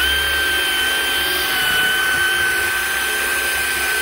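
ACDelco cordless mini polisher running on its low speed setting with its pad on the surface. The motor winds up at the start, then holds a steady high whine.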